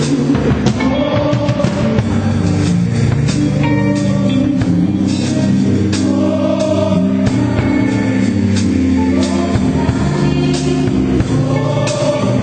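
Live gospel worship music: a drum kit played with sticks, with cymbal and drum strokes, over sustained chords and singing.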